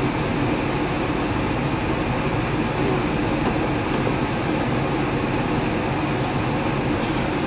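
Yurikamome 7300 series rubber-tyred automated guideway train running between stations, heard from inside the front car as a steady running noise of tyres, motors and car body.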